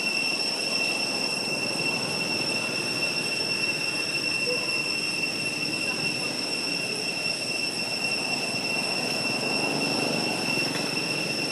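Steady, high-pitched drone of cicadas holding one pitch, over a low, even murmur of background noise.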